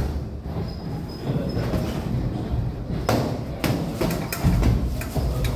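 Boxing gloves landing punches in sparring: a string of sharp slaps and thuds, several coming in quick succession in the second half.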